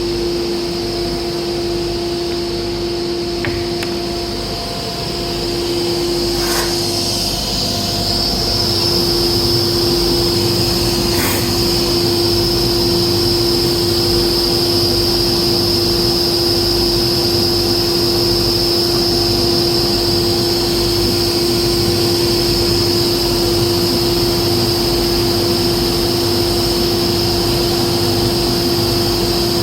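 A machine running steadily: a constant hum with a high whine over it, and two brief knocks about six and eleven seconds in.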